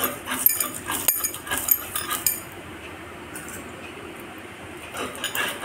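Stone muller working on a stone grinding slab (sil-batta) as cashews are ground to a paste: a quick run of knocks and light clinks for about two seconds, then quieter scraping with a few more clicks near the end.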